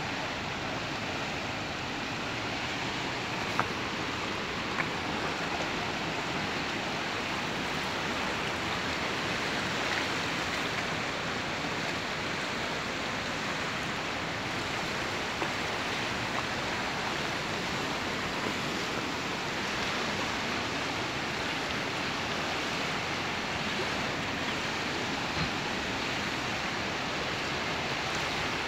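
Steady rush of a fast-flowing river running past a concrete-block embankment.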